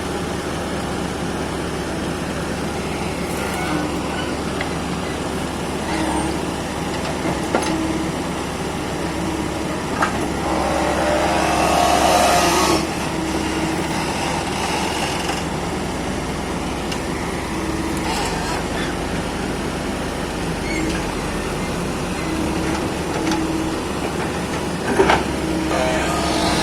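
Hydraulic excavator's diesel engine running steadily under load while it digs and loads soil, with a few sharp knocks and a louder rush of about two seconds a little before the middle.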